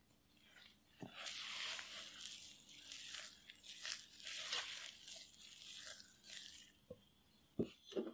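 Wooden spatula stirring flour into thick apple muffin batter in a glass bowl: uneven scraping and squishing strokes through the dry, clumpy dough, ending in a few soft knocks.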